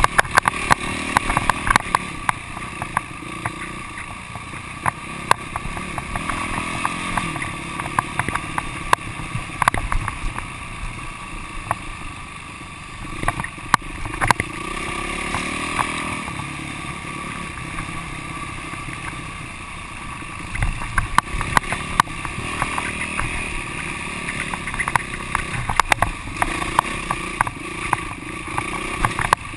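Yamaha YZ450F's single-cylinder four-stroke engine running as the dirt bike is ridden along a rutted dirt road. Frequent sharp knocks and rattles come through over the bumps.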